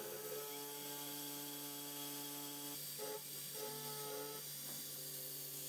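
Pocket NC V2-10 desktop CNC mill's spindle and end mill cutting aluminum: a steady whine with several ringing tones that shift briefly about three seconds in. The ringing is tool chatter.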